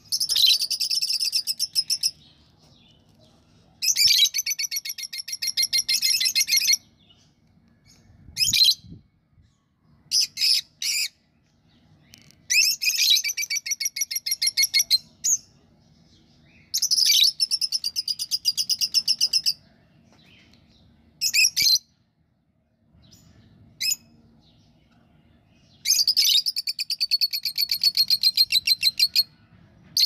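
Budgerigars chattering in repeated bursts of fast, trilled notes, the longer bursts two to three seconds each, with short chirps in between.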